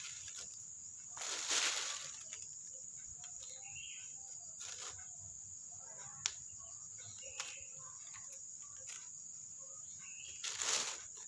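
Thin plastic bag crinkling and rustling in short bursts as fingers dig small chilies out of it, with one sharp snap near the middle and small picking noises in between. A steady high whine runs underneath throughout.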